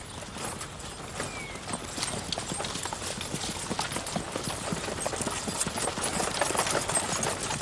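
Hooves of a pair of horses pulling a carriage, clip-clopping at a trot on a dirt track, growing slowly louder.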